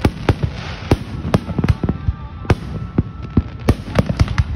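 Aerial fireworks display: shells bursting in a quick, irregular string of sharp bangs, two or three a second, over a continuous low rumble from the show.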